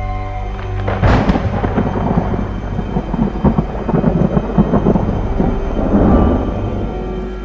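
A thunderclap with rain: a sharp crack about a second in, then a rolling rumble that dies away near the end, over a low sustained music drone.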